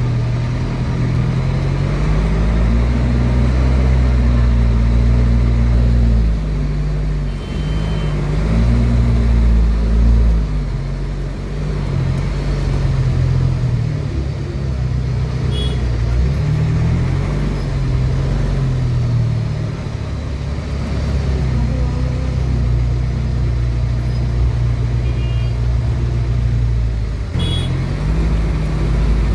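A vehicle engine runs in slow, congested road traffic, its low drone rising and falling in pitch as it speeds up and slows. A few short, high beeps come through now and then.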